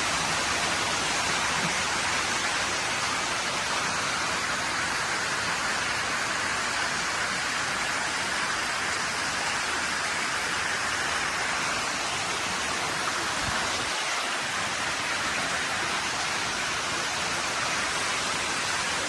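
Storm downpour: heavy rain pouring down in a steady, dense hiss that does not let up.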